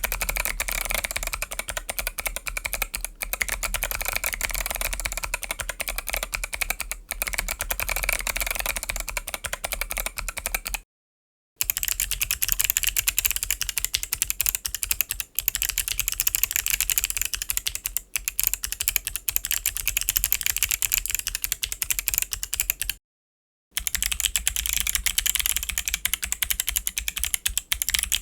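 Fast, continuous typing on a mechanical keyboard with Kailh Box Pro Autumn clicky switches: a dense stream of sharp key clicks. It comes in three runs, broken by abrupt silent cuts at about 11 and 23 seconds.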